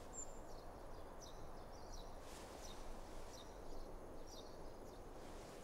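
Faint outdoor ambience: a low steady background hiss with small birds giving short, high chirps every now and then.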